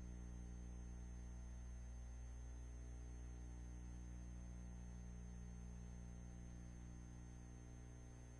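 Steady low electrical hum with a thin high whine and faint hiss: the background noise of a silent film's soundtrack, with no sound event.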